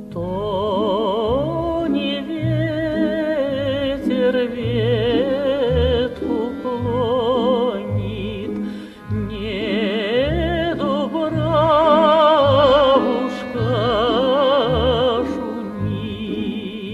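Music: a slow melody with strong vibrato, opera-like, over a regular bass beat.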